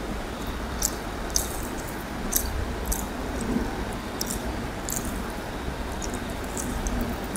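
Close-miked eating sounds: scattered wet clicks and squishes of chewing and of fingers mixing rice and curry on a plate, over a steady background noise.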